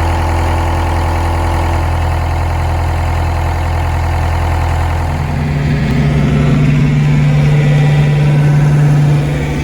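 Volvo ECR88 compact excavator's diesel engine running steadily. About five seconds in its note rises and grows a little louder as the machine takes load, driving the track in reverse, then drops back near the end.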